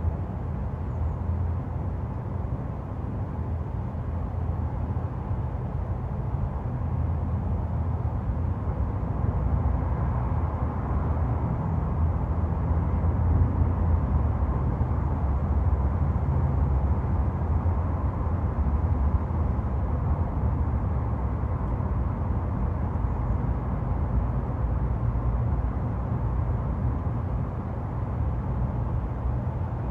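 Steady low rumble of road traffic, swelling a little between about ten and twenty seconds in, as if vehicles are passing, then easing off again.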